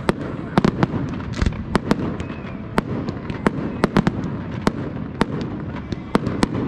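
Fireworks display: sharp bangs going off in quick, irregular succession, often several a second.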